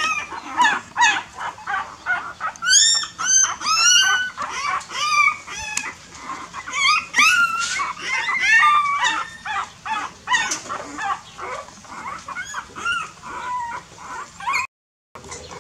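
A litter of newborn puppies whining and squealing, many high rising-and-falling cries overlapping without pause: hungry pups crying for milk. The cries break off briefly near the end.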